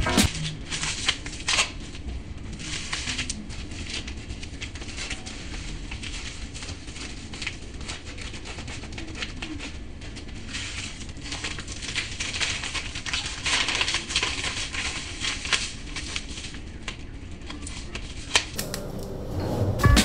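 Close-miked, ASMR-style crackling and clicking, dense and irregular, over a low rumble, stopping shortly before the end.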